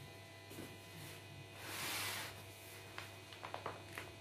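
Faint low hum from the open, lit oven, with a soft rushing swell about halfway through and a few light clicks and taps near the end.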